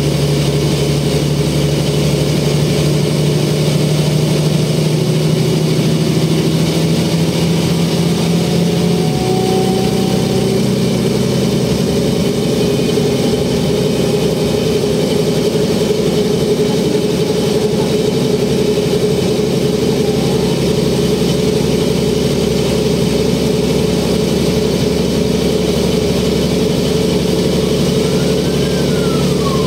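Mercedes O405N city bus's OM447h six-cylinder diesel and ZF 5HP-500 automatic gearbox heard from inside the cabin while under way: a steady engine drone with a whine that climbs slowly, then a step in pitch about nine seconds in as the gearbox changes gear, after which it runs steadily.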